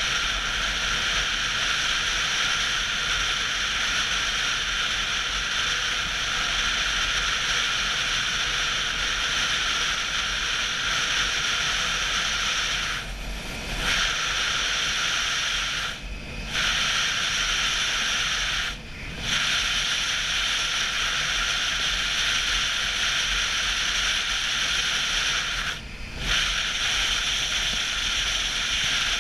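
Steady wind and road rush on a motorcycle rider's helmet camera at highway speed, dropping away briefly four times.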